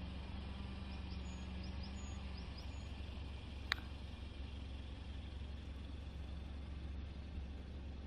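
Outdoor ambience: a steady low rumble under a faint hiss, with a few faint high chirps in the first three seconds and one sharp click near the middle.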